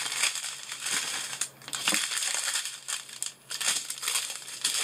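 Small plastic zip bags of diamond-painting drills crinkling and rustling as they are handled, in bursts with two short pauses.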